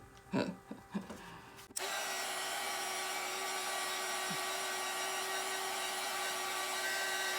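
A small electric motor-driven tool switched on abruptly about two seconds in, running steadily with a hissing rush and a fixed whine. A couple of light knocks come just before it.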